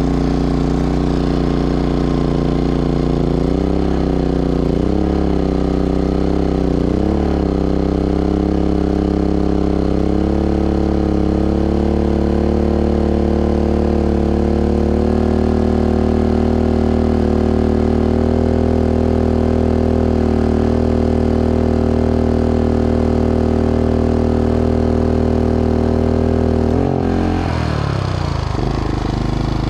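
GenMax 4600i fuel-injected inverter generator engine running under a rising electrical load. Its speed rises and falls for the first several seconds, then holds steady. About 27 seconds in, the pitch drops suddenly as the load comes off, around the point where the generator reached its maximum output.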